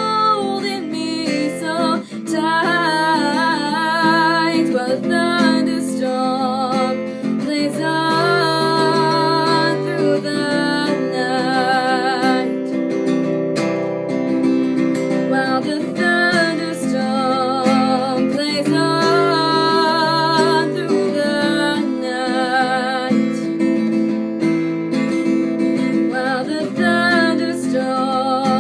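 Acoustic guitar strummed in steady chords, with a woman's voice singing over it.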